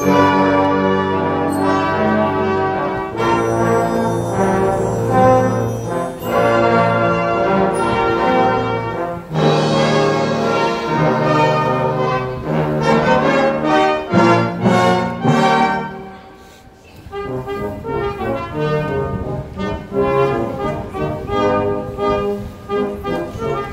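Live orchestra playing with a prominent brass section of trombones and trumpets, holding sustained chords. The music drops away briefly about two-thirds of the way through, then comes back with quicker notes.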